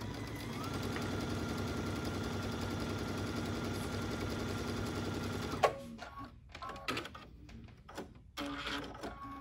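Computerized sewing machine stitching a straight seam at a steady speed, its motor whine holding one pitch. It stops about six seconds in with a click, followed by a few light clicks.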